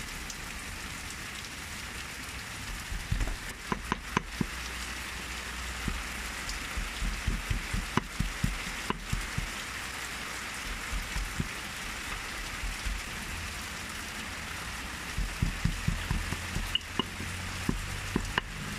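Stone pestle pounding chili paste in a granite mortar: dull thumps in runs of quick strokes with short pauses between, over a steady background hiss.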